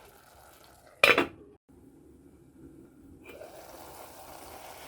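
A single short, sharp knock about a second in, then a faint steady hiss.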